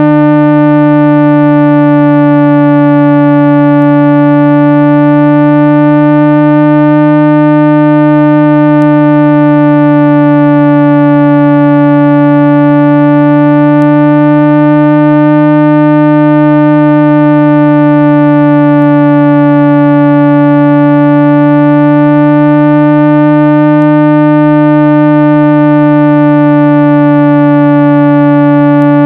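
Synthesized 165 Hz speaker-cleaning tone: a loud, steady low hum with a long row of overtones, its tone colour slowly swelling and fading.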